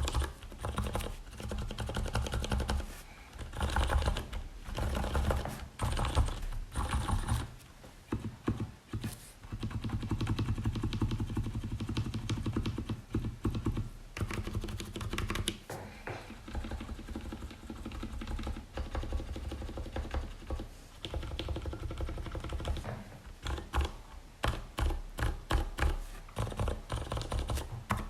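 Typing on a Leopold FC750RPD tenkeyless mechanical keyboard with Cherry MX Silent Red switches lubed with Krytox 205g0. The keystrokes are soft, damped and bassy, coming in fast runs with short pauses between them.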